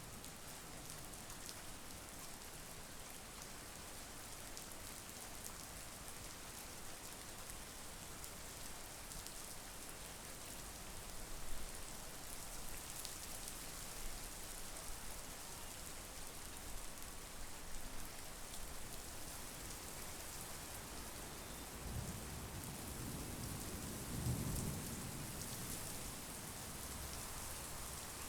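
Steady rain with scattered drip ticks. A low rumble of thunder swells and fades near the end.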